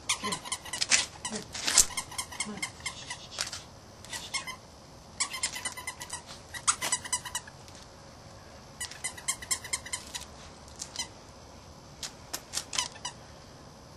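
Australian Terrier puppies at play: four runs of rapid, short, high squeaks, with pauses between them.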